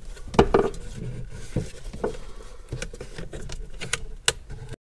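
Plastic wiring connector clips on a car's rear body control module being pried loose with a small screwdriver: a handful of sharp clicks and light rattles. The sound cuts out completely near the end.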